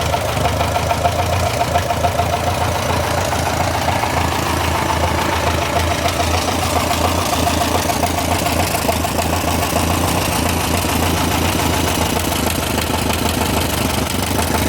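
Massey Ferguson TO35 tractor engine idling steadily with a fast, even ticking knock, a noise that has appeared after the engine's rebuild.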